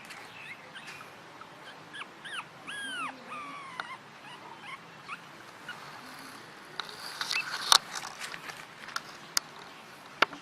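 Puppy whimpering in a few short, high, arching cries. Later come a series of sharp clicks and knocks.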